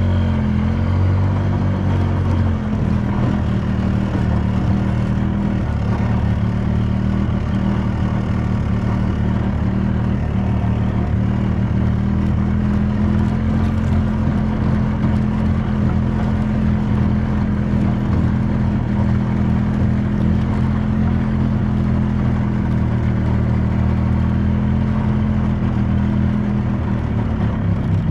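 A small vehicle engine that rises in pitch in the first second, then runs at a steady speed with a slight change in pitch near the end.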